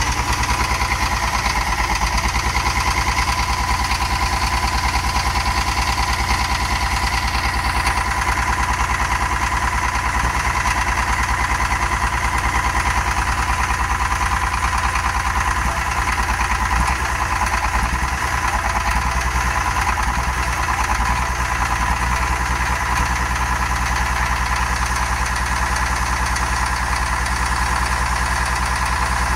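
International UD-236 diesel engine in an old motor grader idling steadily after start-up, with a rapid even firing beat and a steady high whine over it.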